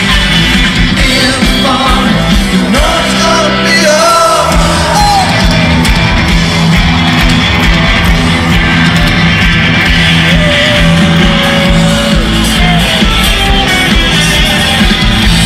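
Rock band playing live through a stadium PA, with a sung lead vocal over guitar, bass and drums. The bass drops away briefly about three seconds in.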